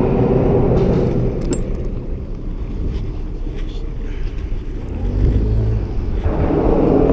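Steady low rumble of a motorboat engine mixed with wind on the microphone. The rumble deepens and swells about five seconds in.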